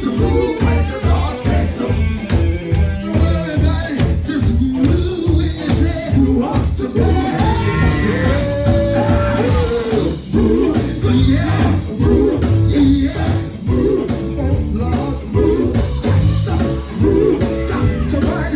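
A live church band plays an up-tempo song on drums and other instruments, with a man singing lead into a microphone over a steady driving beat.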